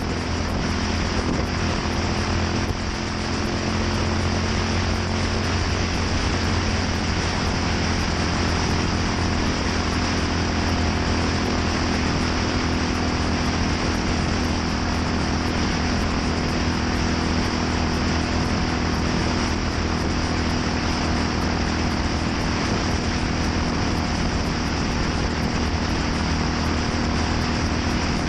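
Yamaha SR400's single-cylinder four-stroke engine running steadily through a NitroHeads aftermarket muffler, its low exhaust note holding at an even pitch and level.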